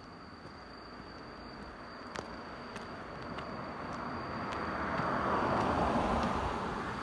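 A vehicle passing by: its road noise swells gradually, is loudest about five to six seconds in, and starts to fade near the end.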